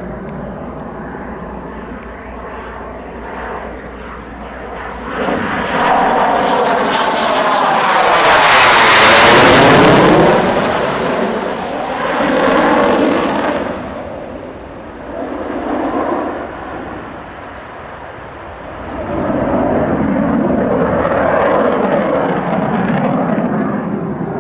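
Twin turbofan jet engines of a MiG-29UB fighter flying aerobatics, the noise swelling and fading as the jet manoeuvres, loudest about nine seconds in, then rising again several times.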